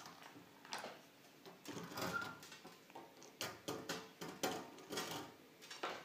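Scattered light clicks and taps as an African grey parrot's claws and beak meet a glass tabletop and small plastic trick toys.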